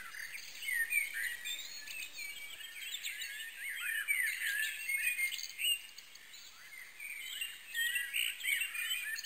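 Many small birds chirping and twittering at once, a dense chorus of quick rising and falling calls that thins briefly after the middle.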